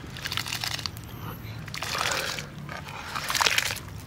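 Washed broken rice being scraped by hand off a clay plate and dropped into a wok of water, the wet grains splashing and pattering into the water in a few uneven bursts.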